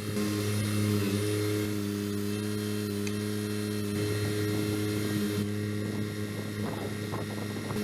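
Kubota BX23S sub-compact tractor's three-cylinder diesel engine running steadily while the backhoe is worked. The engine note shifts slightly about a second in and again around four seconds in, and a few faint knocks come near the end.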